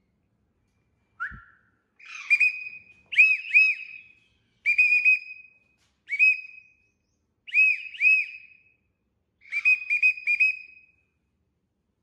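A person whistling short rise-and-fall notes in quick groups of one to four, repeated about every second and a half, to call a parakeet to the hand. A single short knock comes about a second in.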